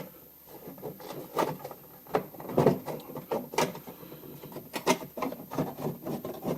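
Irregular clicks and knocks of car interior trim parts being handled and worked loose.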